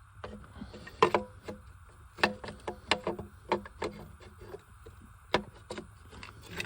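Irregular knocks, clicks and clunks of metal engine parts as the old intake piece is worked and wiggled free where it catches on something, with a few louder knocks.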